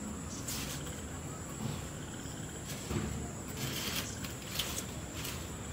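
Crickets chirring in a steady high drone, with a few short rustles over it.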